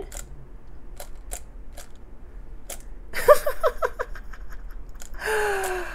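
Hard plastic Hello Kitty Happy Meal figure clicking and clacking several times as its head is pushed down to flap its cape. A short vocal sound comes about three seconds in, and a longer breathy vocal sound, gently falling in pitch, comes near the end.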